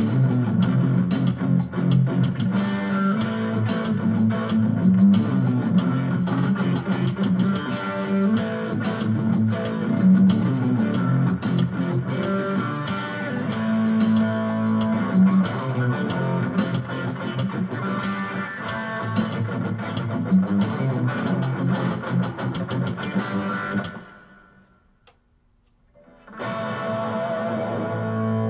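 Electric guitar with ceramic pickups played through a small Roland Cube-10 amp on a crunchy, lightly distorted setting, improvising over a Latin-funk drum-machine groove. About 24 seconds in the playing stops for roughly two seconds. A held chord then rings out steadily.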